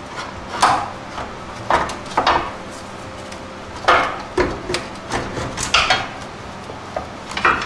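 Front steering spindle of a 1989 Chevrolet S10 being worked loose by hand from the suspension's control arms, giving a string of irregular metal clanks and knocks.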